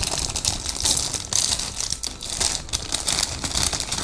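Clear plastic parts bag crinkling as it is opened and handled, an irregular crackle.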